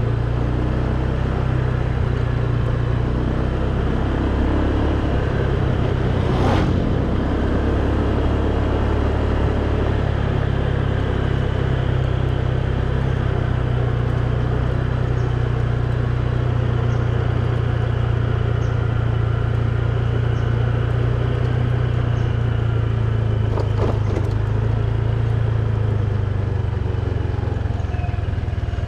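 Motorcycle engine running steadily under way, with the noise of the ride over it and two brief sharp knocks, one about six seconds in and one about twenty-four seconds in.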